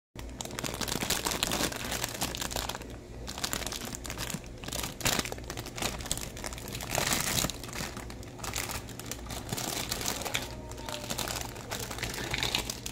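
Clear plastic packaging bag crinkling and rustling as hands unwrap plastic toy food pieces from it.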